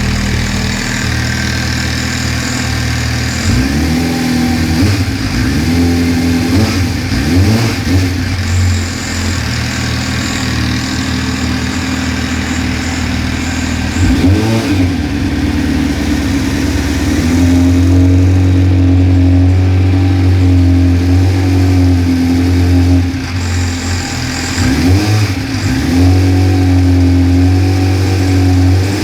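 MV Agusta F4 312 RR 1078's inline-four engine, breathing through an RG3 aftermarket exhaust, running at idle and revved in short blips that rise and fall back. Twice, from about midway and again near the end, the engine is held steady at higher revs for several seconds.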